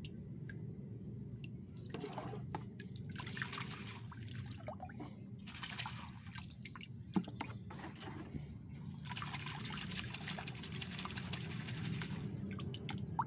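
Water sloshing and splashing as a fine mesh hand net holding freshly scooped bloodworms is swished through tank water, rinsing them. The splashing comes in three spells: about two seconds in, around six seconds, and from about nine to twelve seconds. A steady low hum runs underneath.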